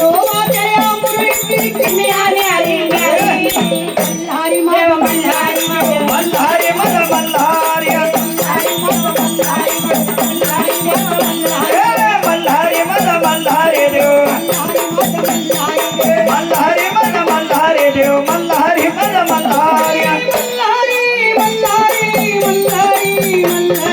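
Elderly woman's strong voice singing a Marathi devotional folk song to Malhari, accompanied by steady rattling percussion.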